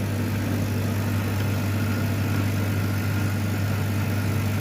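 Steady low electrical-mechanical hum from a running CO2 laser cutting machine and its fans and pumps, with no change in pitch or level.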